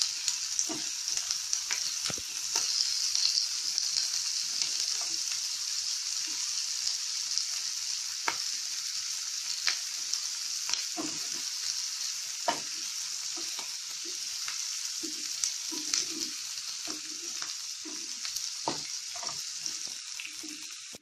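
Chopped onions sizzling in hot oil in a frying pan, the tadka for a dal, stirred with a spatula that scrapes and taps against the pan every second or so.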